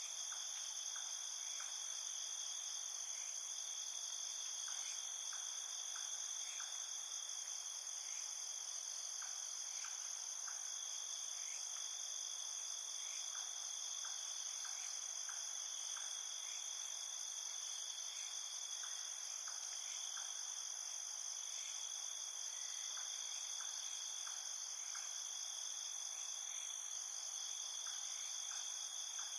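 Night insect chorus: many crickets trilling steadily in several high, overlapping pitches, with short chirps from another caller repeating in small groups every second or two.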